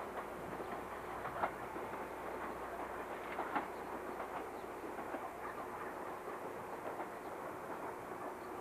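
Electric train running on the rails: steady running noise with scattered sharp clicks of the wheels, the loudest about one and a half and three and a half seconds in.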